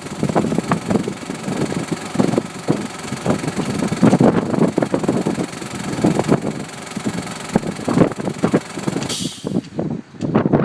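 Strong gusting wind buffeting the microphone: a rough, irregular rumble that rises and falls with the gusts, with a short hiss about nine seconds in.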